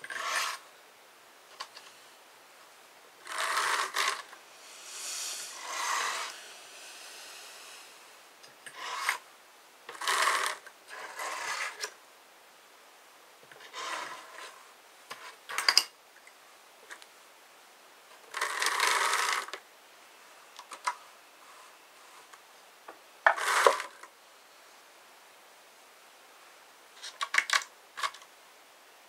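Hand-cranked drum carder working wool: short rasping, scraping bursts of about a second each, several seconds apart, some with sharp clicks, as the wool batt is taken off the carding cloth's metal teeth and fed back through for a second pass to blend the fibres.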